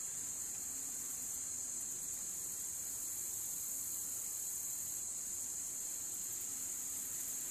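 A steady, high-pitched chorus of insects, droning without a break.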